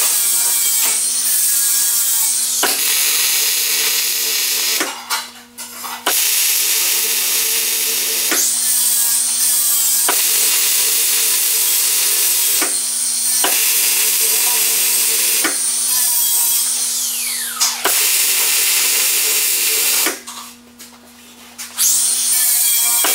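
Wire-feed welder arc crackling and sizzling as a steel rack is welded, in a string of welds a few seconds long with short breaks between them and two longer pauses. A steady low hum from the welder runs under it.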